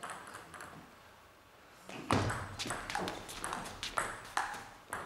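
Table tennis rally: a ball clicking off rackets and the table in a quick run of sharp ticks, several a second. It starts about two seconds in, after a quiet moment while the server gets ready.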